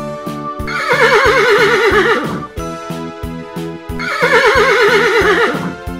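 A horse whinnying twice, each whinny about two seconds long with a quavering, slightly falling pitch. Light background music with a steady beat plays underneath.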